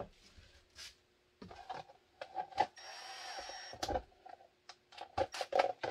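Kydex holster parts and tools clicking and knocking on a workbench during assembly, with a brief whir of a small motor about three seconds in.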